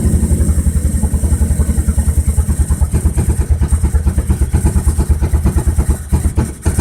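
Volvo B21FT turbocharged four-cylinder engine idling roughly on a Microsquirt standalone engine controller: a steady run of low exhaust pulses, uneven in loudness, with a brief sag near the end.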